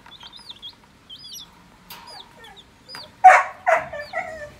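Colour-dyed baby chicks peeping: many short, high cheeps in quick succession. About three seconds in comes a brief, louder burst of sound.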